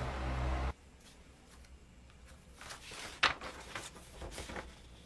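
A low hum that cuts off suddenly under a second in, then quiet room tone with a few soft clicks, the sharpest about three seconds in.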